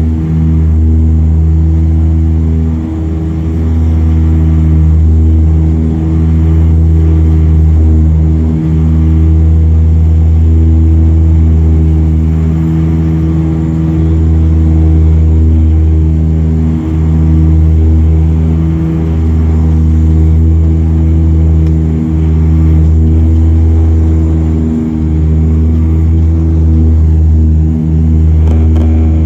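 De Havilland Canada Dash 8 turboprop engine and propeller during the climb after takeoff, heard from a cabin seat right beside the propeller: a loud, steady low drone with a stack of steady humming tones above it, swelling and easing every couple of seconds.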